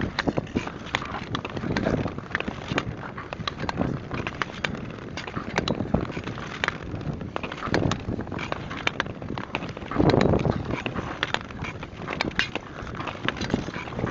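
Ice skate blades scraping and clattering over rough natural lake ice, with a swell of noise about every two seconds as the skating strokes push off, and many sharp crackles and clicks throughout.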